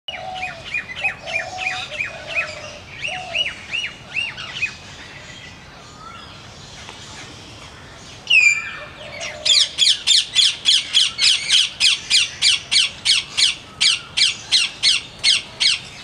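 Rose-ringed parakeet calling with shrill, repeated squawks. After a quieter pause comes a single loud call about eight seconds in, then a fast, regular series of loud squawks, about three a second.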